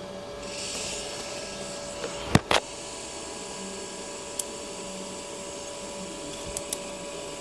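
TIG welding at the bench, with the steady hum of the Furius Flex 121 inverter welder running throughout. About two and a half seconds in there are two sharp knocks as the torch and workpiece are handled, followed later by light ticks as the lift-TIG arc is struck on the thin metal strips for a fusion weld.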